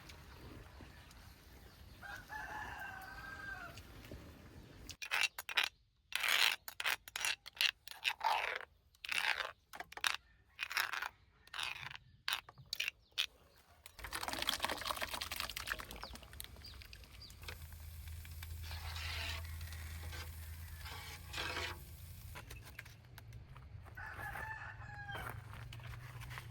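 A rooster crowing, once about two seconds in and again near the end. In between comes a louder run of short, choppy sounds broken by brief gaps.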